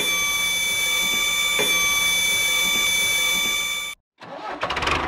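Small geared electric motor giving a steady high-pitched whine as it slowly swings a miniature pipe arm upward. The whine cuts off abruptly about four seconds in, and another small machine starts running with a fast, even rattle near the end.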